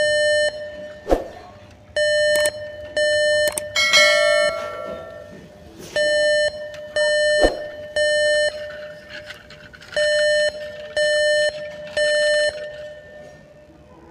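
Battery-operated toy crane truck's electronic sound module beeping: loud, evenly pitched beeps in groups of three, each about half a second long, with short pauses between groups. About four seconds in there is a brighter chime of several tones, and a few sharp clicks fall between the beeps.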